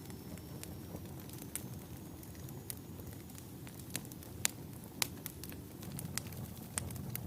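Wood fire burning in a fireplace: a steady low rumble of flames with irregular sharp crackles and pops, the loudest two about four and a half and five seconds in. A faint high whistle sounds through the first half.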